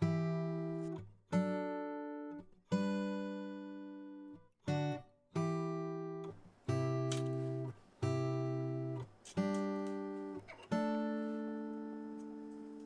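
Background music of strummed acoustic guitar. A chord is struck roughly every one and a half seconds, and each rings and fades before the next.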